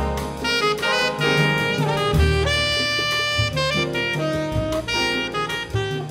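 Small jazz ensemble playing: a tenor saxophone carries a sustained melody over double bass and drums, with a regular cymbal beat throughout.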